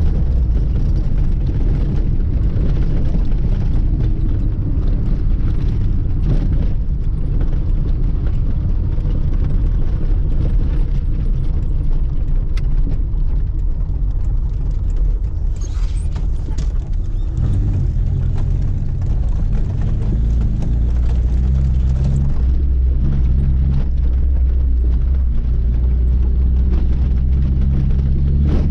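Lada 2106's four-cylinder petrol engine running under way, with a steady low drone. About halfway through the note changes, and after that the pitch steps up and down as the revs change.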